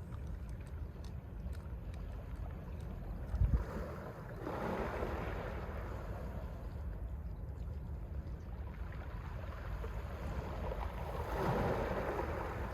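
Small Mediterranean waves washing onto the pebble beach, two swells of surf building and fading, about four seconds in and near the end. Under them a steady low wind rumble on the microphone, with a brief low thump of wind just before the first wave.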